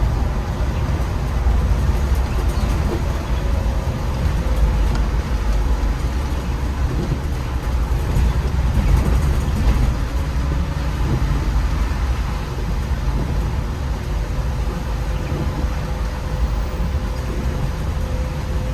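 MAN Lion's City articulated city bus under way: a steady low rumble of engine and drivetrain mixed with road noise, with a faint thin whine running through it.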